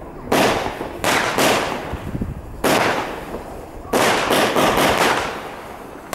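Consumer fireworks going off, a sharp bang every second or so, each fading away in a long echo. A quick run of smaller reports follows about four seconds in.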